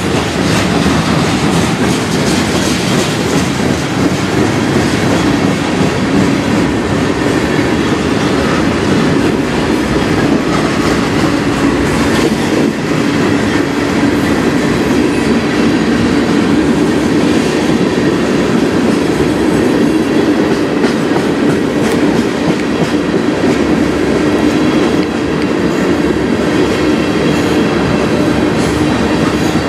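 Freight cars of a CN manifest train, covered hoppers and then tank cars, rolling past at close range. The loud, steady noise of steel wheels on the rails carries repeated clicks as the wheels pass over the rail joints.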